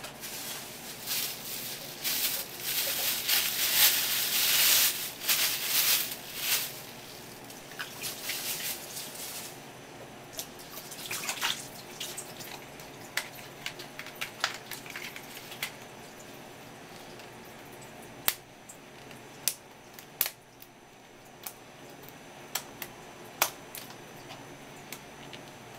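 Live swimming crabs shifting in an aluminium tray: a dense, wet-sounding crackling and scraping for about the first ten seconds, then quieter, with a run of sharp separate clicks in the second half as a crab is lifted and handled.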